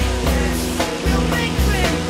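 Rock music with a steady drum beat, bass and guitar.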